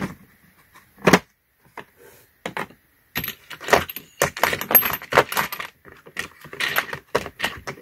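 Steel Torx sockets and bits clinking against each other and knocking into a plastic tool case as they are sorted into place. A sharp knock comes about a second in, and the clatter grows busy through the second half.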